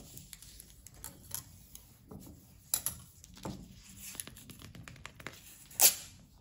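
A sheet of paper being folded and creased by hand, with soft rustles and short crackles and one louder, sharper crackle a little before the end.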